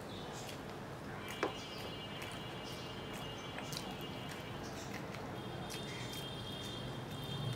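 A person eating rice and mutton by hand: chewing with soft wet smacks and small mouth clicks, one sharper click about a second and a half in, over a steady hiss and a faint high whine that comes and goes.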